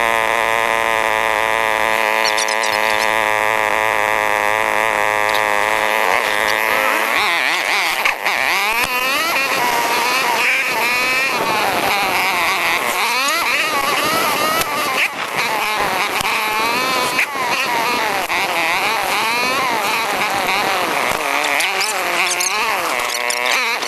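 ATV engines running on a trail: a steady drone for about the first seven seconds, then the pitch swings rapidly up and down as the throttle is worked.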